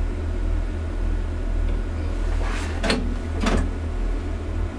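Class 142 Pacer railbus's underfloor diesel engine running with a steady low drone, heard inside the driving cab. About three seconds in come two short, sharp hissing clicks, half a second apart, from the cab's driving controls.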